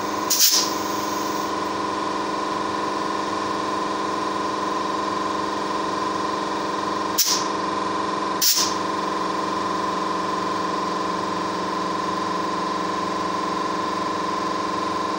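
Compressed air hissing steadily into a GAZelle light-truck tyre through a tyre-inflator gun with a pressure gauge, with a constant hum under the hiss and three short sharp hisses from the gun. The tyre is being pumped up to about 4.5 bar to check the vulcanized sidewall repair.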